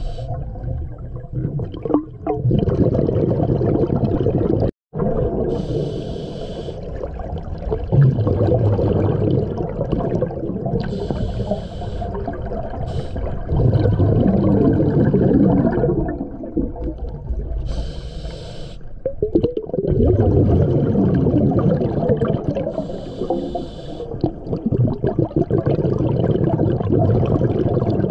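Scuba diver breathing through a regulator underwater: four short hissing inhalations about every six seconds, each followed by a long bubbling gush of exhaled air.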